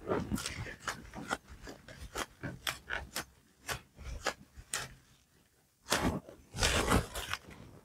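Bamboo sushi rolling mat being rolled and pressed around a sushi roll: irregular light clicks of the wooden slats, with two longer rubbing sounds about six and seven seconds in.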